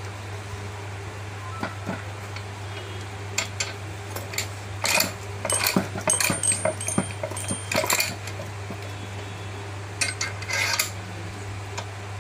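Metal clinks and rattles from a manual ROPP capping machine worked by hand, its levers and capping head knocking against metal. The clinks are scattered at first, come thick through the middle, and run briefly again near the end, over a steady low hum.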